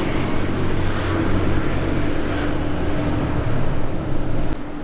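Steady low rumble of street traffic noise, which cuts off suddenly near the end.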